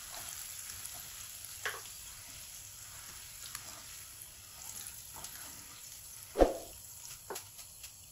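Okra strips deep-frying in hot oil, a steady sizzle that thins toward the end. Light scrapes and clinks of a wire-mesh skimmer in the pan come through it, with one sharp knock about six and a half seconds in.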